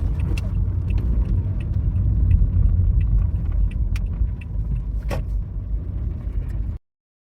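Low rumble of a vehicle on the move, with small clicks and rattles on top; the sharpest comes about five seconds in. The sound starts and stops abruptly.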